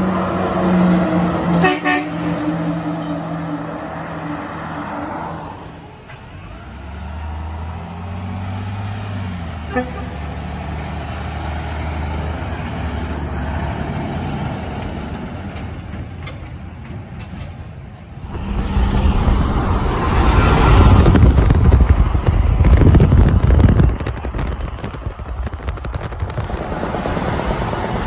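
Heavy trucks and their air horns in a run of short clips. First an Oshkosh S-series cement mixer's Hadley air horn blows for a couple of seconds. Then a heavy truck's diesel engine runs with a low, steady rumble, and near the end a tractor-trailer passes close and loud.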